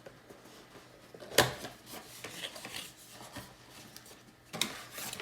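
Hands handling small computer parts: light rubbing and scraping, with a sharp click about a second in and two more near the end.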